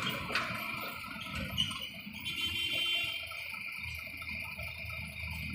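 Road traffic passing close by: a truck and then a car go past with low engine rumble and tyre hiss.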